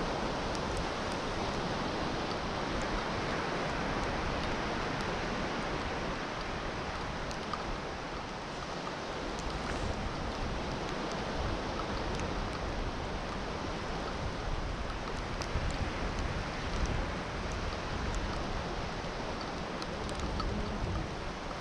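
Sea surf washing steadily onto a sandy beach, an even rushing noise that swells and eases slightly.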